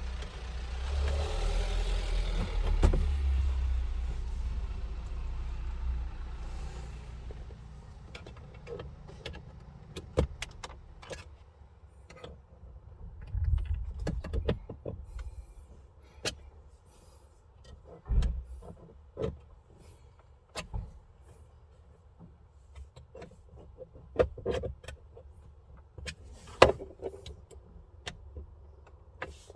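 A car passes, its rumble fading away over the first six seconds or so. Then come scattered sharp clicks and knocks of plastic dashboard trim and a radio fitting adapter being handled and their tabs pushed into place.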